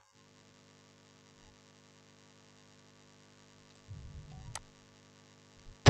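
Faint steady electrical mains hum in the recording's microphone line, with a brief low rumble about four seconds in and a single click just after it.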